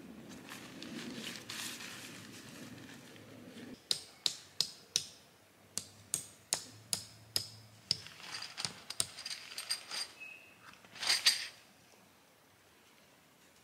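A soft rustling, then a run of sharp metallic clinks, about two a second, each with a short bright ring. Near the end comes a louder scraping rattle.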